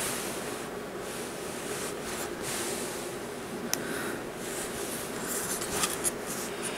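Soft rustling handling noise as a cast-aluminium lightsaber hilt is turned in the hand over a fabric blanket, with a light click a little past the middle.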